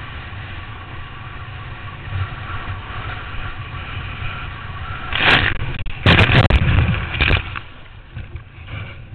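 Water spray and rushing air on a helmet-mounted camera as a kneeboard is towed at speed over a wake. About five seconds in, loud splashes and crashing water as the rider wipes out, then quieter sloshing.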